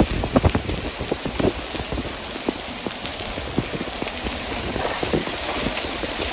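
Hailstones striking hard surfaces in sharp, irregular knocks over a steady hiss of falling rain.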